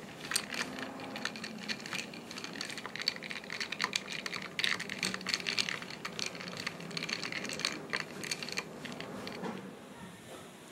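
Ice cubes clinking and rattling against a drinking glass as an iced drink is stirred with a straw: a fast, irregular run of light clicks that stops near the end.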